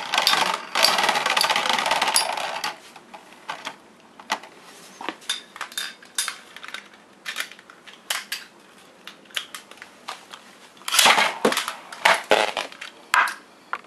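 Metal Beyblade spinning tops (Burn Phoenix 135MS and Quetzalcoatl 90RF) whirring and clashing on a plastic stadium floor, a dense metallic rattle for the first couple of seconds. Scattered clicks follow, then another burst of rattling near the end as a top spins and strikes the stadium wall.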